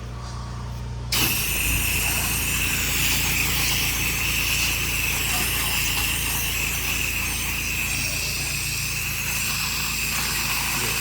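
Pressure washer engine running steadily, then about a second in the wand's trigger is pulled and a high-pressure water spray starts with a sudden, steady loud hiss.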